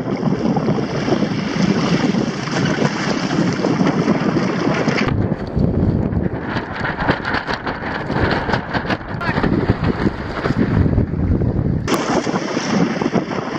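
Strong wind buffeting the microphone, with rushing and splashing water as a Hobie sailing trimaran moves through choppy water. About five seconds in the sound turns duller and more rumbling, with scattered clicks, then opens up again near the end.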